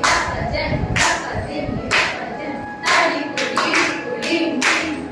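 A group of dancers clapping the beat together, about once a second and then quicker after about three seconds, while voices recite Kuchipudi jathi rhythm syllables.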